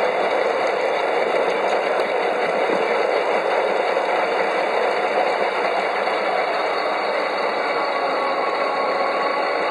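Steady running noise of a 5-inch gauge garden railway train heard from on board: wheels rolling and rattling along the rails with the locomotives' drive, at an even speed.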